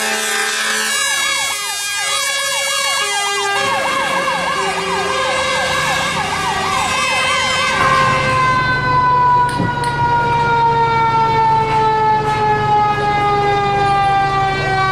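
Fire truck siren rapidly sweeping up and down, with short air-horn blasts, for about the first eight seconds. Then a mechanical Q siren winding down, its pitch falling slowly and steadily over a running diesel engine.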